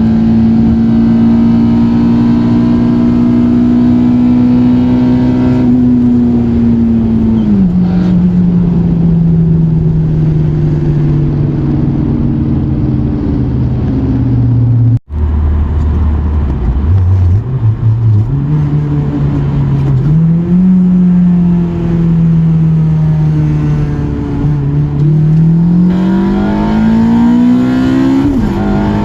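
Acura TSX's K24A2 2.4-litre four-cylinder engine, breathing through a cold air intake, running hard under load: its pitch holds high, then falls as the revs drop. After a sudden break about halfway, the revs climb, dip and climb again as the car accelerates through the gears.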